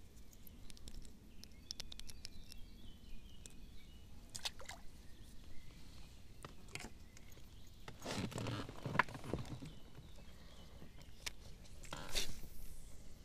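Handling noises in a small fishing boat: scattered light clicks and knocks, a louder rustling scrape about eight seconds in, and a shorter one near the end.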